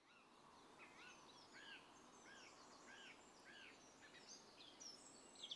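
Faint birdsong: one bird repeats a short arched call several times, with high twittering from other small birds that grows louder near the end.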